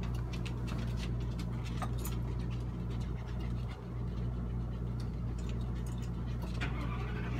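Steady low hum of a motorhome's air conditioner running, with a few faint clicks and taps.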